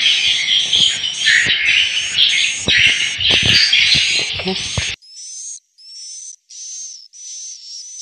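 Swiftlet call sound played through the tweeter speakers of a swiftlet house: a short rising chirp repeating about twice a second over dense twittering. The twittering and a few small knocks stop abruptly about five seconds in, leaving only the repeating chirps.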